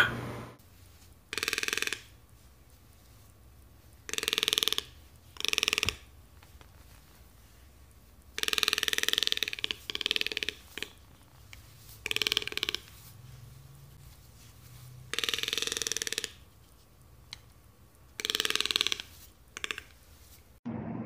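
Toco toucan giving a series of rough croaking calls, about ten of them, each half a second to a second long, with gaps of one to a few seconds between.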